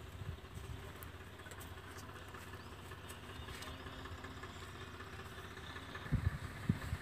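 Faint, steady low rumble of outdoor background noise, with two soft low thumps about six seconds in.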